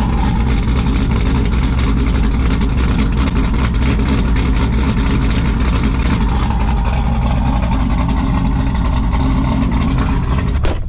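Modified LS V8 engine running steadily with a loud, deep rumble, warmed up and running on ethanol.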